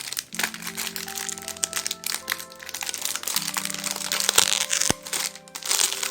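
Packaging crinkling and crackling in close handling as merchandise is taken out of a box, over background music with long held notes.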